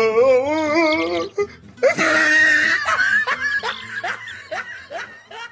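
Comedy laughter sound effect over music: a long wavering voice, then a loud outburst and a run of short falling laughs, about four a second, fading toward the end.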